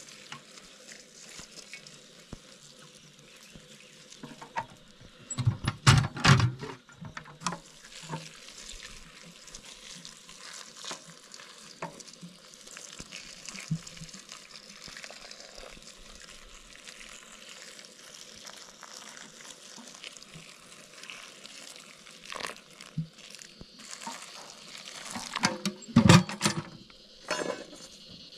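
Water poured from a kettle spout into a steel pot of stinging nettle leaves, a steady splashing stream. Loud clattering knocks come about six seconds in and again near the end.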